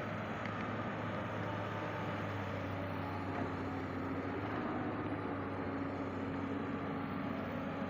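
A steady low mechanical hum with a constant hiss over it, holding even throughout.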